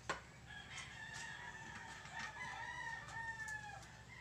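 A rooster crowing: one long crow of nearly three seconds, starting about half a second in. A single sharp clink right at the start.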